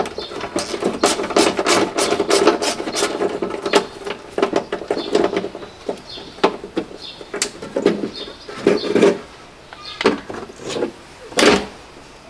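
Irregular scraping, squeaking and clicking as a foam insulation piece is worked loose from the inner panel of a car door. The handling is busiest in the first few seconds, then thins to scattered clicks and rubs.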